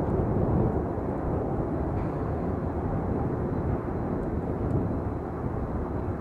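Diesel locomotives hauling a double-stack container train, a steady low rumble of the engines and the rolling train.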